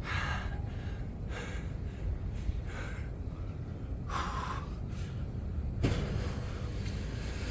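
A man breathing hard and gasping with effort during one-arm press-ups: about five short, forceful breaths, with a single knock a little before the end, over a steady low rumble.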